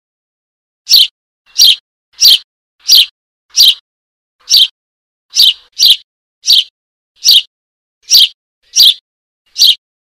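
Eurasian tree sparrow chick giving short, high begging calls, about thirteen sharp chirps at an uneven pace of roughly one to two a second, calling for its parent to feed it.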